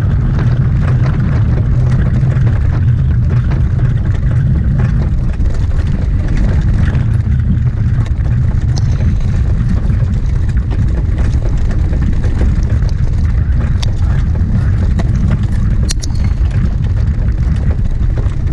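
Wind blowing hard on the microphone at racing speed: a loud, steady low rumble, with a few faint clicks.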